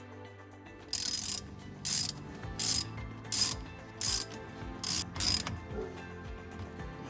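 Seven short bursts of rapid mechanical ratcheting clicks, spaced roughly every two-thirds of a second, over background music with a steady beat.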